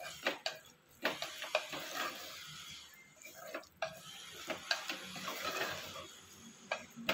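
Wooden spoon stirring prawns through a thick tomato-onion masala in a terracotta clay pot, scraping and clicking irregularly against the pot, with the food sizzling underneath.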